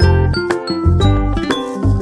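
Upbeat background music with a steady bass beat about twice a second and bright bell-like melody notes.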